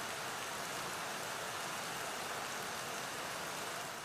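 A steady, even rushing noise, water-like, that begins abruptly and eases off near the end.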